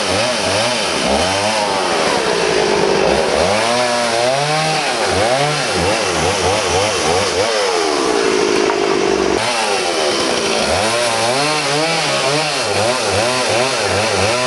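Two-stroke chainsaw cutting branches into firewood lengths, its engine revving up and falling back over and over. Twice it holds a steady high pitch for a second or two while in the cut, the second time about halfway through.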